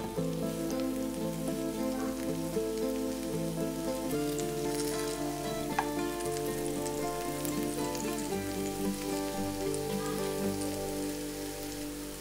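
Background music with held notes over the light crackling sizzle of egg-filled tomato slices frying in oil in a pan. There is one sharp tap about halfway through.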